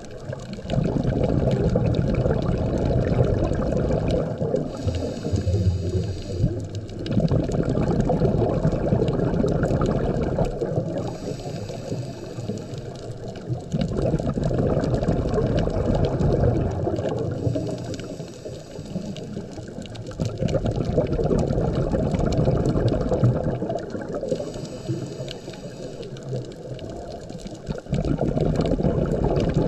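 Scuba diver breathing through a regulator underwater, in a steady cycle: a hissing inhalation of two to three seconds, then a longer burst of bubbling exhaust bubbles, four breaths about six seconds apart.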